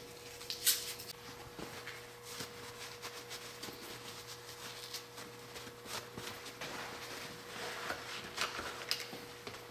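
Quiet handling noise: a cloth rustling, with small scattered clicks and taps as a motor and its wires are handled, over a faint steady hum.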